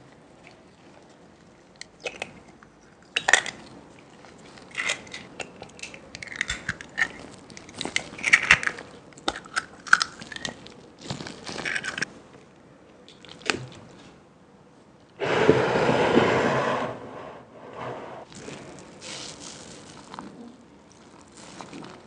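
Close-miked food preparation: a string of crinkles, taps and clatters, with a louder steady rushing noise lasting under two seconds about fifteen seconds in.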